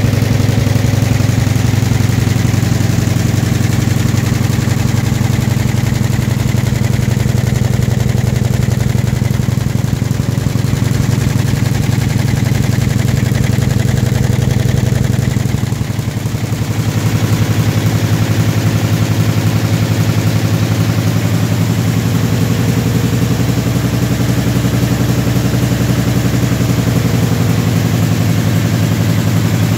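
YBD166 66-needle quilting embroidery machine stitching: a steady, rapid, rhythmic mechanical clatter that dips briefly about halfway through.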